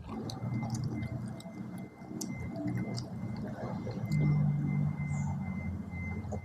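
Close-miked chewing of food, with small wet clicks of the mouth scattered throughout.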